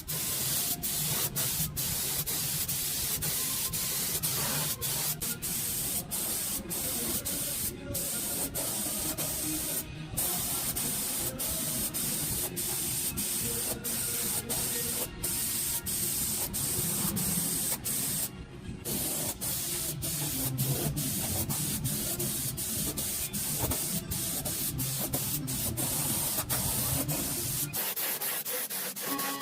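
A steady rushing spray hiss, broken by brief drop-outs.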